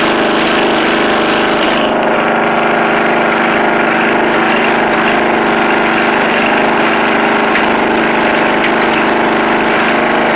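Riding lawn mower engine with a custom exhaust running steadily and loudly while the mower drives along.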